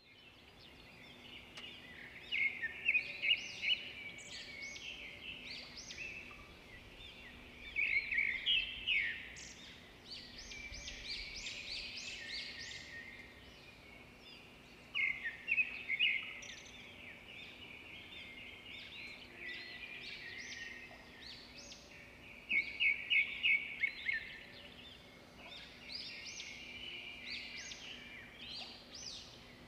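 Songbirds singing in the trees: repeated phrases of quick, high chirping notes, each a second or two long, several times over a faint steady background hum.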